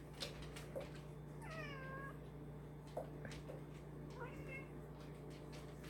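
Two faint cries from a household pet: a roughly half-second call that bends in pitch about a second and a half in, and a shorter one around four seconds in.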